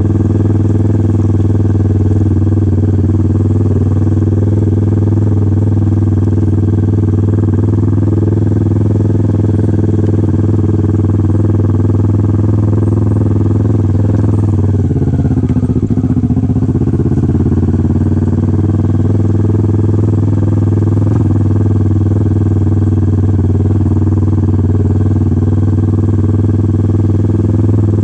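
Kawasaki Ninja 650's parallel-twin engine running at steady, near-constant revs, with a brief wobble in pitch about halfway through.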